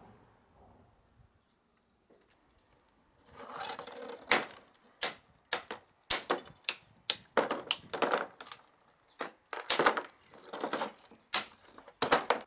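An irregular run of sharp clacks and knocks, about fifteen in eight seconds, with short rustling handling noises between some of them.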